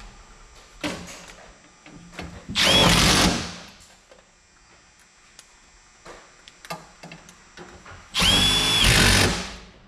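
Power drill run twice in bursts of about a second each, the motor whine rising quickly and then holding steady before cutting off, with a few light knocks and taps between.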